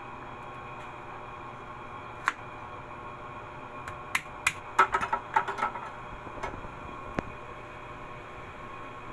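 Kitchen knife knocking and clicking on a plastic chopping board while ginger is cut: a single sharp knock about two seconds in, a quick cluster of knocks in the middle and two more later, over a steady background hum.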